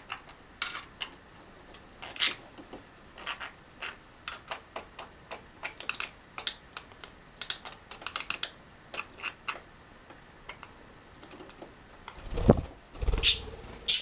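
Budgies making short, irregular clicks and taps, a few a second, like small beak taps and clicks. Near the end come a couple of louder, deeper thuds.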